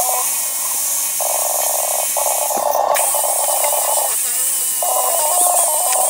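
Small hand-held grinder with an abrasive disc grinding the steel rear axle tube down to bare metal for welding, a steady hiss with a brief break about two and a half seconds in.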